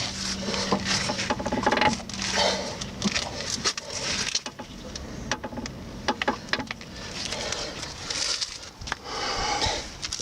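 Front suspension ball joint of a Renault Scénic II creaking in a series of squeaks and clicks as the steering and suspension move: a very loud creak from a dry, unlubricated joint, cured by a few millilitres of engine oil injected under its boot.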